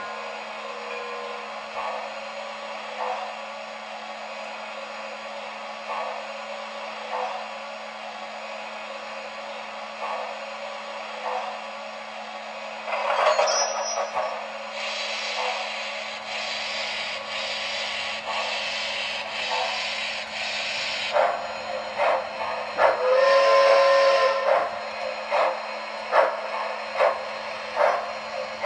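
Model steam locomotive's sound system for a 4-6-2 Pacific: steady steam hiss with soft puffs while standing, a whistle blast about two-thirds of the way in, then sharp chuffs as the engine starts pulling its long passenger train. A steady low electrical hum runs underneath.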